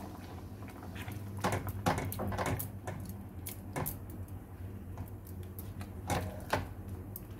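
Thick paneer gravy simmering in a kadai, its bubbles popping in irregular soft pops and clicks over a steady low hum.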